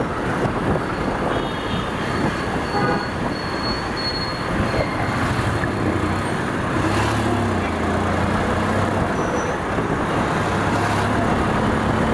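Riding on a Honda motorcycle: steady wind and road rush on the microphone over the bike's engine running at cruising speed, with street traffic around.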